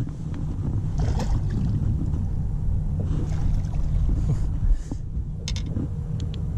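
Steady low rumble of wind buffeting the microphone out on a boat, with a few light clicks a little past the middle and near the end.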